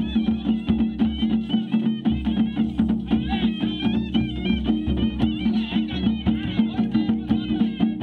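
Traditional folk band playing: a reedy pipe carries a wavering melody over a steady drone, with drums beating an even rhythm of about four to five strokes a second.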